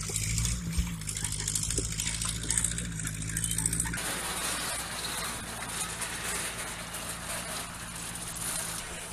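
Vintage farm tractor engine running steadily while pulling a disc harrow. About four seconds in it cuts off abruptly, giving way to a steady hiss.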